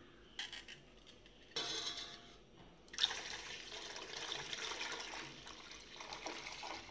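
A few light knocks, then about three seconds in milk starts pouring into a steel pot of hot jaggery syrup, splashing and foaming steadily as it goes in.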